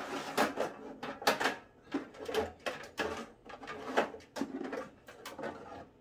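The outer cover of an all-in-one diesel air heater being worked loose and lifted off its frame by hand: a run of irregular clatters, knocks and scrapes.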